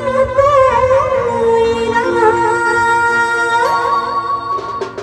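Adivasi band music amplified through a large stage sound system, playing the opening of a timli: a loud electronic keyboard lead holds long notes with smooth pitch bends over a low bass.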